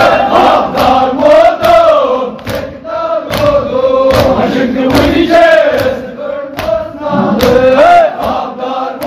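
Group of men chanting a Kashmiri marsiya lament together, with held notes rising and falling, over regular sharp strikes of hands beating on chests (matam) keeping time.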